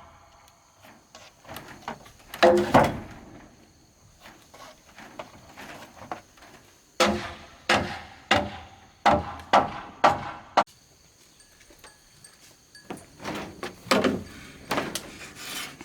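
A dozen or so sharp knocks of a tool striking wood, in irregular groups, each with a short ring after it.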